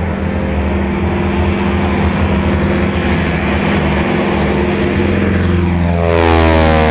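Boeing Stearman PT-17's seven-cylinder Continental R-670 radial engine running steadily at high power during the biplane's takeoff roll on grass. About six seconds in it gets louder and its higher tones sweep down in pitch.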